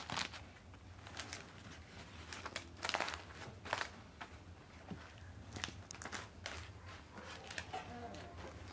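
Sheets of dry, tandoor-baked lavash flatbread crinkling and rustling as hands fold and stack them, in irregular crackles that are loudest around three seconds in.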